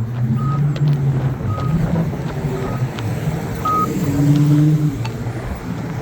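Polara iDS2 accessible pedestrian signal push button giving its short locator beep about once a second, over the low hum of passing traffic. A vehicle's engine note is loudest about four seconds in.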